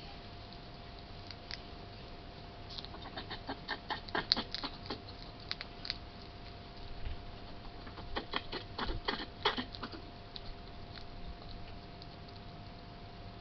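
Hedgehog making two bouts of rapid, short, sharp clicks, several a second.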